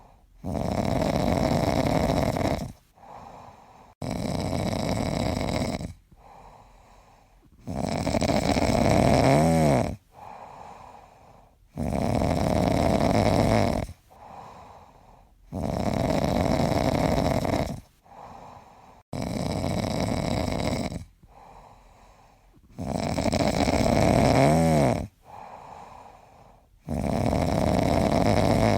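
Steady, rhythmic snoring: about eight loud snoring breaths of roughly two seconds each, one every three and a half seconds or so, each followed by a quieter breath.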